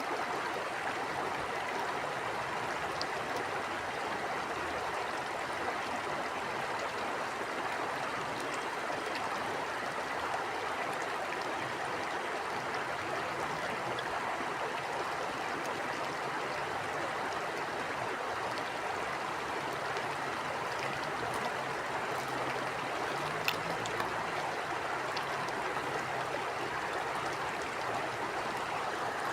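A river or stream flowing steadily, a constant rush of water with a few faint ticks and splashes.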